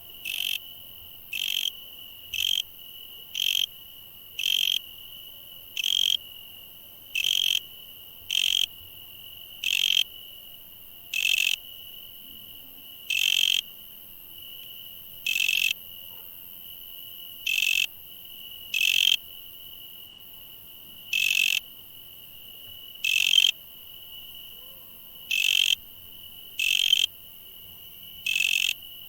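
Insects calling: a steady, high, unbroken trill, with a louder, harsher chirp about every one to two seconds.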